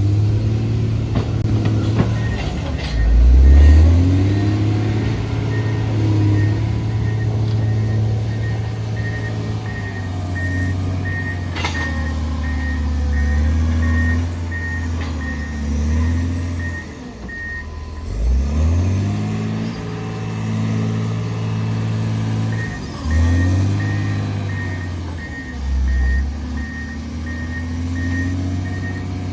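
John Deere motor grader's diesel engine working, its pitch rising and falling repeatedly with load. Its reversing alarm beeps steadily at about two beeps a second for most of the time, stopping for a few seconds in the middle.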